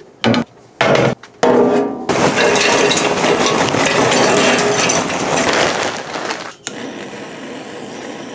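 A few knocks, then charcoal poured into a metal chimney starter: a dense clattering and crackling of lumps for about four seconds. Near the end it gives way to the steady hiss of a handheld butane torch flame.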